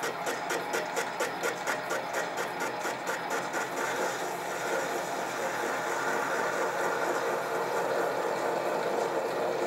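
Sieg mini lathe running at about 250 rpm, facing the edge of a crank held in a three-jaw chuck, with a sharp tick about four times a second, once per turn of the chuck. About three and a half seconds in the ticking fades into a steady whirr of motor and cutting.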